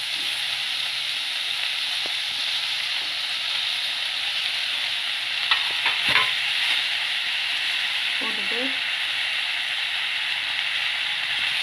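Onions, mint and freshly added tomato pieces sizzling steadily in oil in a steel kadai. A perforated steel ladle stirs and scrapes against the pan, with a few sharp clicks about six seconds in.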